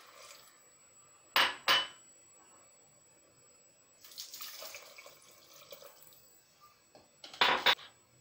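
Bone broth pouring faintly into a steel pot of lentils, then sharp kitchenware clinks: two about a second and a half in, and a quick cluster of them near the end.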